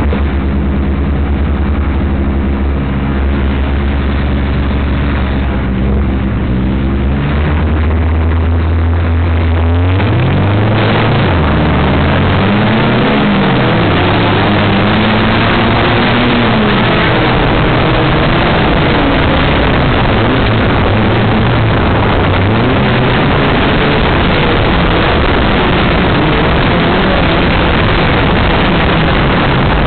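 Off-road race car's engine idling steadily for about the first ten seconds, then revving up and pulling away, its pitch rising and falling repeatedly through the throttle and gear changes under a loud rushing noise.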